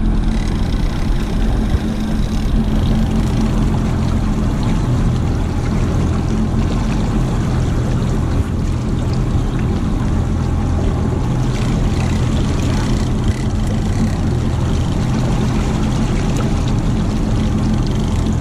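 Twin outboard motors on a boat's stern running steadily while trolling, a constant low hum, over the wash of the wake churning behind the boat.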